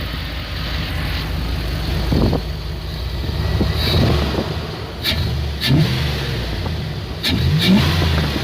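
A 5.9-litre Magnum V8 in a Dodge Ram pickup is running and pulls up in revs twice, rising in pitch a little past the middle and again near the end, with the induction noise of an aftermarket Airaid cold air intake. A few short clicks sound along with it.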